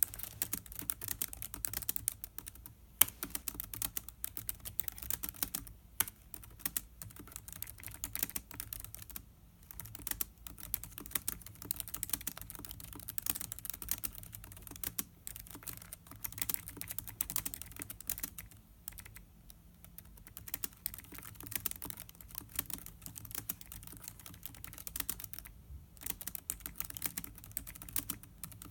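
Typing on the built-in keyboard of a 2016 Lenovo ThinkPad X1 Carbon laptop: a quick, uneven run of key clicks with a few short pauses and an occasional harder keystroke.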